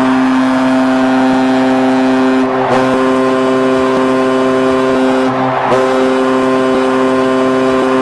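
Hockey arena goal horn sounding a loud, steady chord of several notes in three long blasts, with two brief breaks about a third and two-thirds of the way in, signalling a goal.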